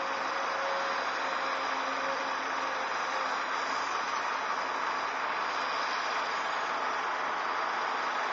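Heavy diesel earthmoving machinery running steadily, a continuous mechanical noise with a faint engine note that fades out about three seconds in.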